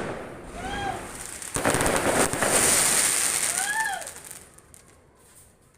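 Fireworks crackling and fizzing, a dense rattle of small pops that dies away over the last couple of seconds. A short call that rises and falls in pitch is heard twice.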